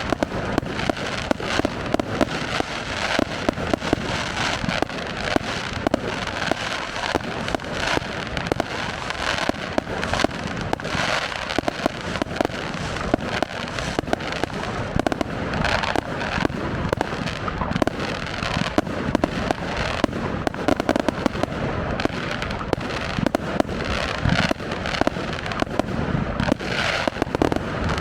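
Fireworks display going off without pause: a dense barrage of bangs and crackles, several a second.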